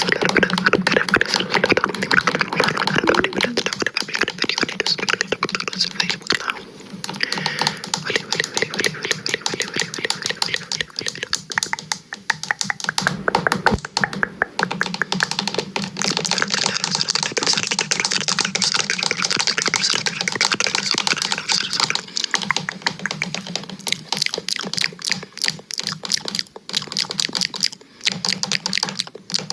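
Dense, fast clicking and scratching noises made close to a microphone, running on without a break over a steady low hum.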